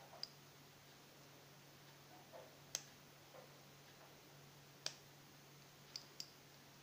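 Several sharp, light clicks at irregular intervals, two of them close together near the end, from small hand tools and electronic components being handled on a circuit board. A faint steady hum runs underneath.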